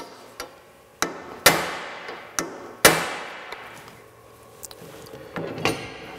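Hammer driving a steel number six taper pin into the lathe's apron lever collar: about half a dozen sharp metal strikes in the first three seconds, the two loudest ringing on, then several lighter taps near the end.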